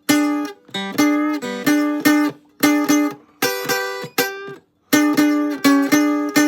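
Guitar playing short, punchy blues stabs of two or more notes at once, each struck sharply and cut short, breaking off twice briefly. These are the tritone "honker" licks, the interval meant to sound like honking a horn as a warning.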